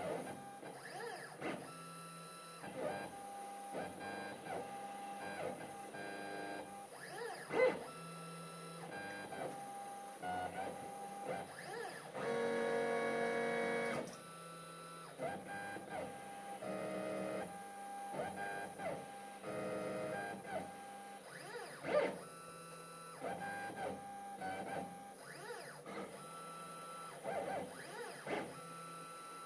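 Stepper motors of a CNC-Step High-Z S-720/T engraving machine whining at shifting pitches as the axes drive a diamond engraving point across brass. The whine jumps between steady tones every second or so, grows louder and fuller for about two seconds midway, and two sharp clicks come through.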